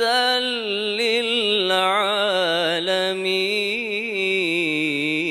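A male reciter chants the Quran in the melodic mujawwad style through a hand-held microphone. He holds one long, ornamented vowel on a single breath, the pitch wavering in fine turns that come quicker near the end.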